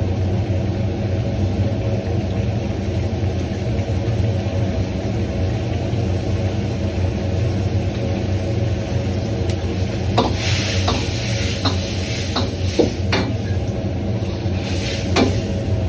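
Steady low roar of a restaurant wok burner running on high. About ten seconds in, sizzling starts, with a handful of sharp metal knocks of a ladle against the wok as the mapo tofu is stirred and fried.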